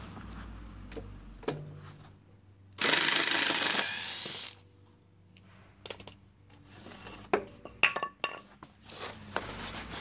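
White foam packing sheets rustling and crinkling as they are handled and laid over a wooden pallet. A loud burst of rustling comes about three seconds in and lasts under two seconds, with scattered light clicks and knocks near the end.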